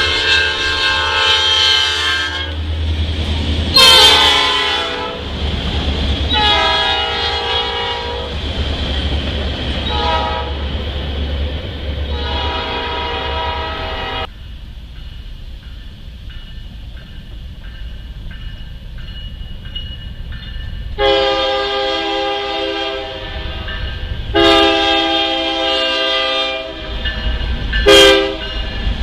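Diesel locomotive air horns blowing at a grade crossing over the low rumble of a train: a run of blasts of varied length, then after a sudden break a stretch without horn. Near the end a second locomotive horn sounds long, long, short, long, the standard grade-crossing warning.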